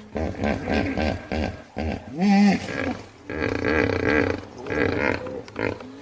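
Hippopotamus calling: runs of pulsing grunts, with a louder call about two seconds in that rises and falls in pitch.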